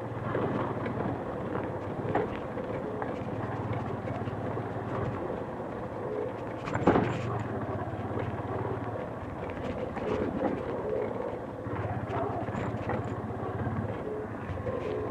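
Motorcycle engine running at low speed on a rough, muddy track, its low note dropping away and coming back with the throttle. There is a single knock about seven seconds in.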